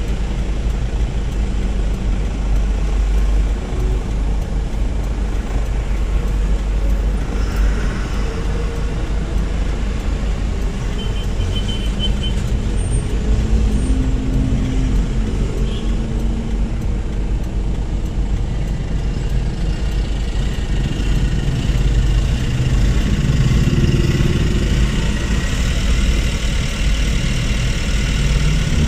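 Vehicle driving on a road test: a steady, low rumble of engine and road noise.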